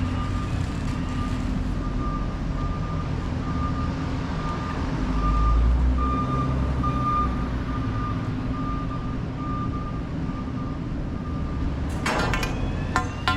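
A vehicle's reversing alarm beeping at one steady pitch, a little under two beeps a second, louder in the middle and fading out near the end, over a low engine rumble. A few sharp metallic clanks sound near the end.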